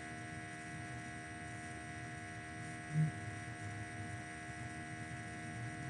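Steady electrical mains hum with several fixed tones, and one brief low sound about three seconds in.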